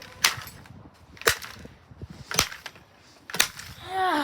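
Four sharp cracking blows, about a second apart, as a Blaupunkt fan heater's plastic casing is hit while being smashed.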